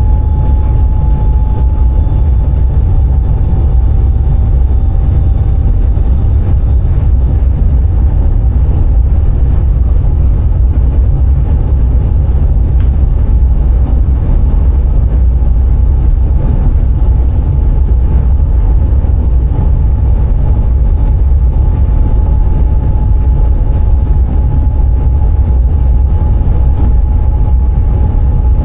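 Dutch Sprinter electric train running at speed, heard from inside the driver's cab: a loud, steady low rumble of wheels on rail, with a thin steady whine above it.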